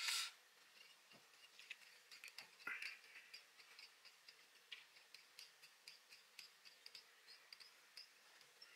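Faint, irregular light ticks and clicks of fly-tying work at the vise as thread is wrapped from a bobbin onto the hook.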